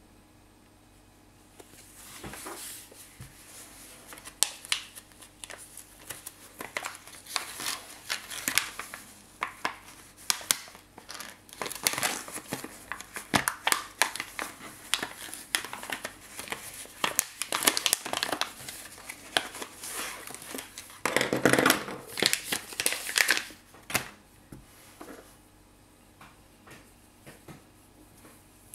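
A clear plastic pen bag and its cardboard header card are crinkled and handled as the pack is opened. The crackles are irregular and sharp, with a louder rush of crinkling about three-quarters of the way through, and then only a few light clicks near the end.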